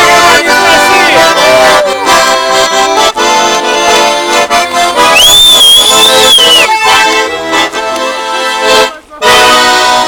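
Russian garmon (button accordion) playing a tune in full chords. A voice is heard briefly at the start, and a shrill high note is held for about a second and a half midway.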